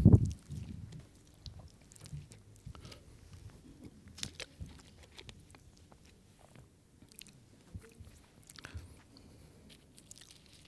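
Small crinkles and clicks from a plastic water bottle being handled and Bible pages being turned at a lectern, scattered and quiet, after a single dull thump at the very start.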